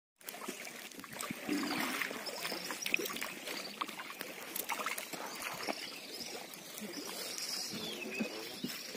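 Shallow water lapping and sloshing against a wooden boat's hull and a wader's legs as the boat is handled at the shore, with scattered small knocks.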